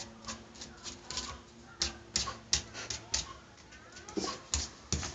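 Irregular sharp clicks and taps of a West Highland White Terrier's claws on a hard floor as it paws at a beetle, coming faster and louder in the second half.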